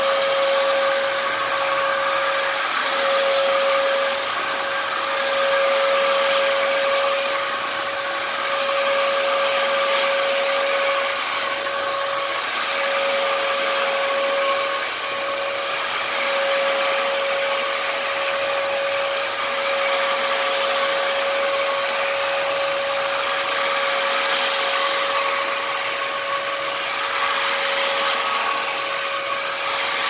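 Dyson DC07 upright vacuum running with its small hose brush tool drawn over a mattress. It is a steady motor whine with a clear tone, which dips briefly a few times as the tool moves.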